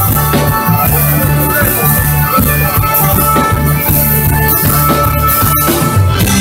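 Live folk band playing: organetto (diatonic button accordion) melody over electric guitar, bass and drum kit, at a steady beat.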